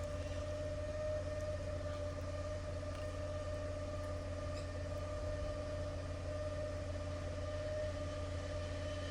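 Drain water jetter's engine and pump running steadily, a constant low hum with a steady whine on top.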